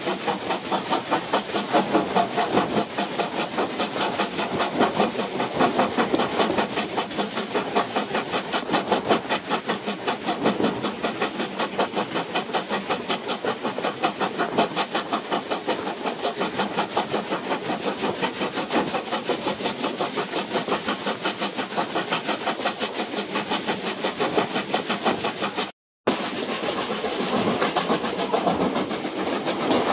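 Steam locomotive running at speed, its exhaust chuffing in a quick, even rhythm, heard through an open carriage window close behind the engine. The sound cuts out for a moment near the end.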